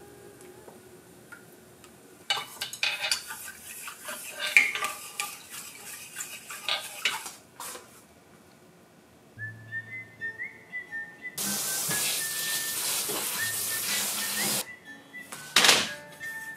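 Pots and utensils clinking and clattering for several seconds, then a steady rush of hot water being poured off for about three seconds, and a sharp metal clank as a pot is set down on the gas hob's grate near the end. Light background music plays under it.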